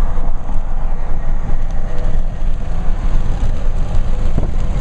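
Highway traffic, trucks and cars, passing with a steady low rumble; no horn sounds.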